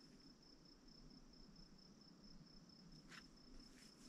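Near silence, with a faint, evenly pulsing high-pitched insect trill throughout and a brief faint hiss about three seconds in.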